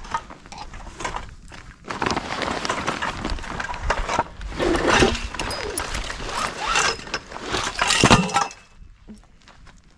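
Rustling and scraping of sail cloth being handled on gravel, mixed with crunching footsteps on the gravel, in irregular bursts, loudest a little after eight seconds in.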